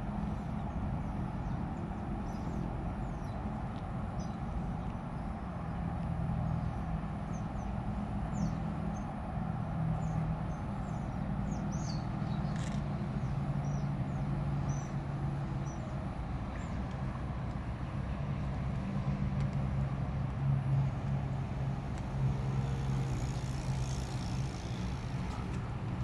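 Steady low hum of distant road traffic, with faint short high chirps scattered over it.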